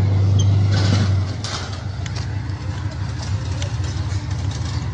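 Heavy engine running with a low, pulsing rumble. A steadier low hum sits under it for the first second or so, and a few faint sharp clicks come through on top.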